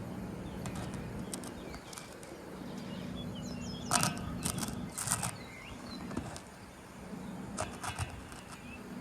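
Ductless heat pump unit running at raised capacity, a steady low hum from its compressor and fan. Short bird chirps and a few sharp clicks are heard around the middle.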